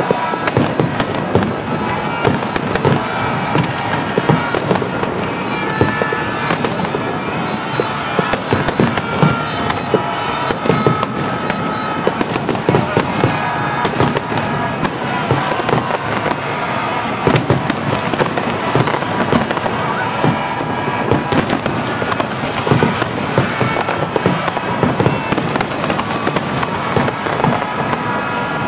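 Fireworks display going off in a continuous barrage of bangs and crackles, with no break.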